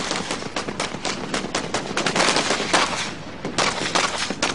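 Rapid, overlapping machine-gun and rifle fire: covering fire during a live-fire infantry assault exercise. It eases briefly about three seconds in, then resumes.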